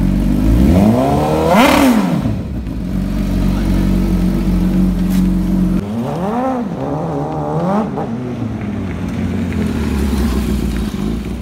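Suzuki GSX-R1000's inline-four engine through a Brock's aftermarket exhaust, blipped once in a quick rising-and-falling rev near the start. It then runs steadily with two more revs past the middle as the bike moves off on a test run after new clutch plates.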